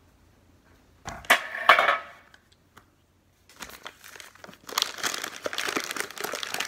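Crinkling and rustling of packaging as baking ingredients are unpacked onto a kitchen counter: a short spell about a second in, then a longer, busier spell from about halfway.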